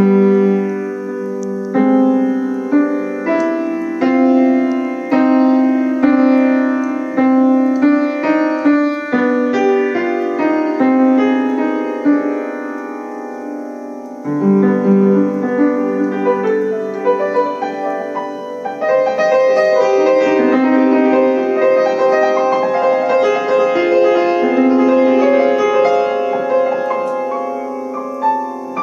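Piano playing a piece slowed down from a tempo too fast for human hands. Distinct struck notes ring and fade about once a second at first, and the playing grows denser and fuller from about two-thirds of the way in.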